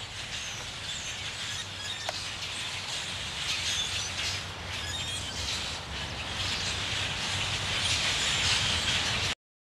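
Birds chirping over a steady outdoor hiss and low rumble, getting louder toward the end, then cutting off suddenly about nine seconds in.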